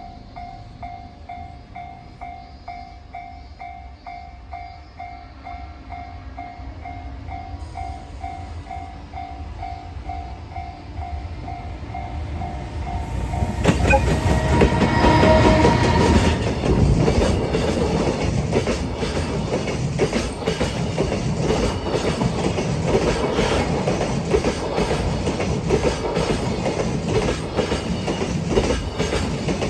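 A Japanese level-crossing warning bell rings with a steady repeated ding, about two a second. About 14 seconds in a freight train arrives loudly, and its wheels clatter quickly and heavily over the rail joints to the end.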